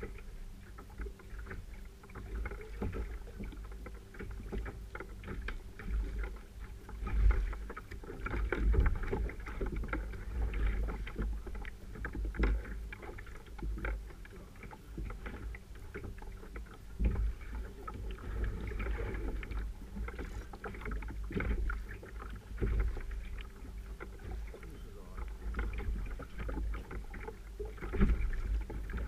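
Sea water slapping and sloshing against a paddle ski's hull, with wind rumbling on the camera microphone and irregular knocks and clicks throughout.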